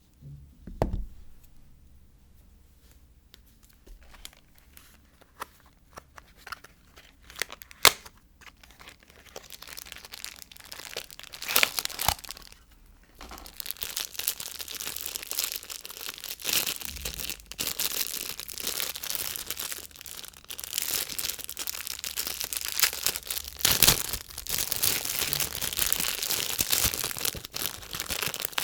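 Soap packaging being unwrapped by hand. A few light taps and handling clicks come first, then from about halfway there is steady tearing and crinkling of the wrapper.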